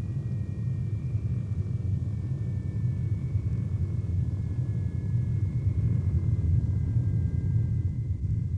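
Jet aircraft engines running: a deep rumble with two thin whining tones that slowly drop in pitch.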